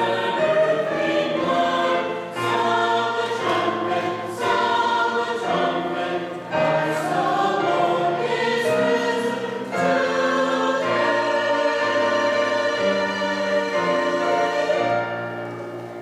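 Church choir and congregation singing a hymn together in full chords. The final chord is held and dies away near the end.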